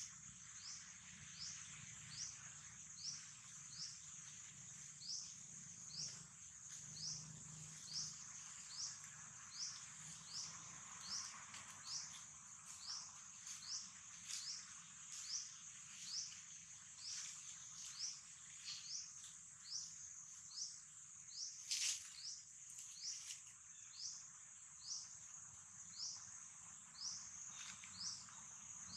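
Faint outdoor ambience: a steady high insect drone with a short rising chirp repeating about once a second. There is a single sharp click about three quarters of the way through.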